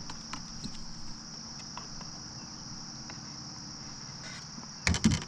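A steady, high-pitched chorus of insects. Just before the end comes a brief cluster of sharp knocks and rattles, the loudest sound here.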